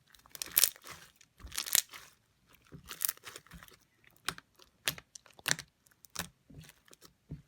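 Crunchy slime with beads mixed in being squeezed and pressed, giving a string of irregular crunches and crackles.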